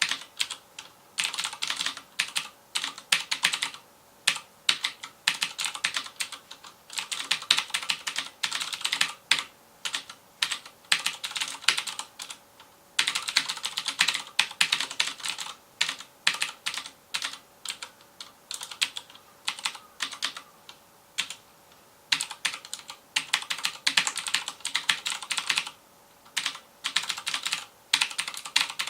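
Fast typing on a FILCO Majestouch Convertible 2 mechanical keyboard with Cherry MX Blue switches: rapid bursts of crisp, clicky keystrokes with short pauses between runs.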